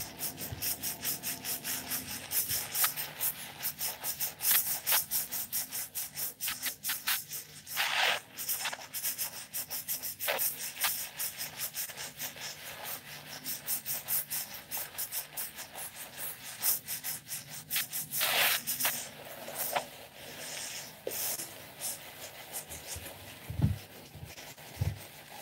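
Fingers scrubbing a thick bamboo charcoal shampoo lather into short hair: quick, repeated wet rubbing and squishing of foam against the scalp, with a couple of longer swishes about eight and eighteen seconds in.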